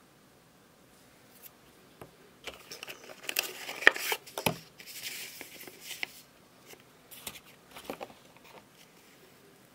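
Packaging being handled during an unboxing: rustling and crinkling with sharp clicks and knocks. The handling is busiest from about two and a half to six seconds in, with the loudest click around four seconds. A few lighter clicks follow near the end.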